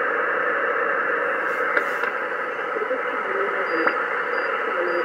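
Kenwood TS-450S HF transceiver receiving on upper sideband: a steady hiss of shortwave static held to a narrow voice band, the open channel between transmissions. Faint short pitched traces drift through the hiss near the end.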